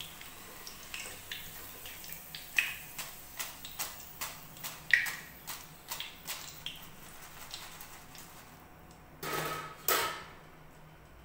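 Metal wire-mesh skimmer clinking against a kadhai as fried potato chips are lifted out of hot oil, with light crackling from the oil. About nine seconds in, two short rustling bursts as the crisp chips are tipped into a wire strainer.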